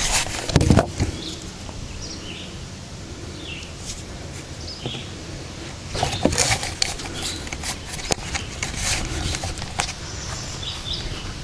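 Outdoor ambience with faint bird chirps, a low thump about half a second in, and a cluster of sharp clicks and knocks from about six seconds on, like handling noise; no firecracker blast is heard.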